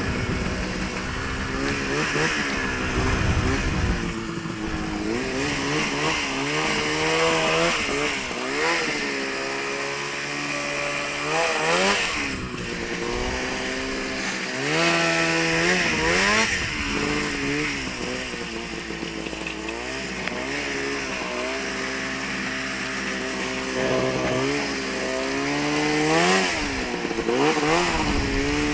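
Ski-Doo snowmobile's 800 two-stroke engine revving up and easing off again and again while the sled is ridden.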